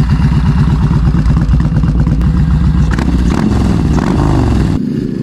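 Yamaha Bolt 950's air-cooled V-twin running through the shop's aftermarket exhaust with an even, pulsing idle beat. About three seconds in it is revved up and back down a few times, and the sound changes abruptly to a quieter engine just before the end.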